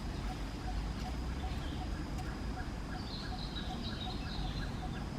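Outdoor ambience of birds chirping, with a cluster of high chirps in the second half, over a steady high whine, a fast regular pulsing call about five times a second, and a low rumble.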